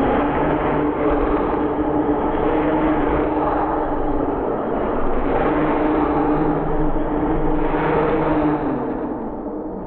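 Arrma Typhon 6S RC car's brushless motor whining steadily at full throttle inside a giant plastic zorb ball, its tyres spinning against the ball's wall. The whine fades out near the end, as the car's power cuts off.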